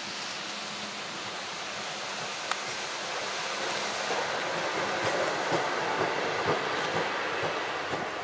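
ÖBB class 2070 diesel-hydraulic shunting locomotive running light past, growing louder as it approaches and passes, with clicks from its wheels on the track in the second half.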